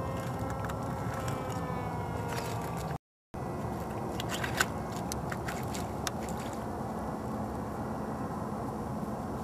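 A dog biting and breaking thin pond ice at the water's edge: a cluster of sharp cracks and crunches about four to six seconds in, over a steady low background noise.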